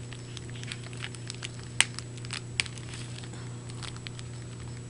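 Small plastic packets and pieces being handled: light scattered clicks and crinkles, with two sharper clicks about two seconds in, over a steady low hum.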